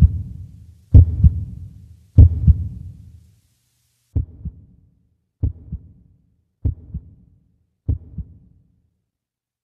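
Heartbeat sound effect: paired low thumps, a double beat about every 1.2 seconds. The beats turn quieter about four seconds in and stop shortly before the end.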